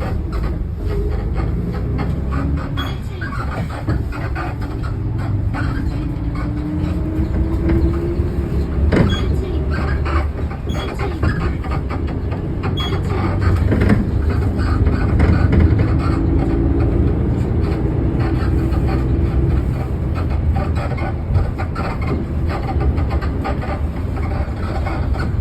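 Cabin noise of a 2022 Kia Granbird Green City city bus on the move: steady engine and road rumble with repeated knocks and rattles from the suspension, a few sharp knocks standing out. The engine tone rises twice as the bus picks up speed.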